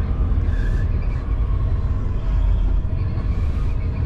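Semi-truck diesel engine running at low speed with a steady low rumble while maneuvering a trailer into a parking spot.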